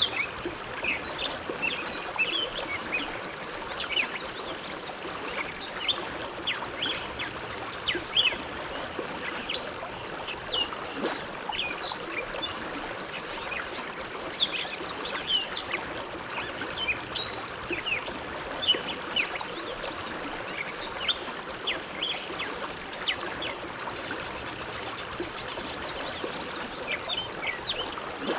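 Bow River flowing: a steady rush of water with many small gurgles and splashes near the bank.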